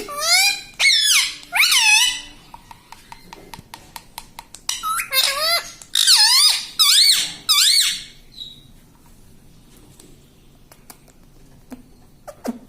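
Rose-ringed (ringneck) parakeet giving high, squeaky warbling calls in bursts: several in the first two seconds and more from about five to eight seconds in, followed by faint scattered clicks.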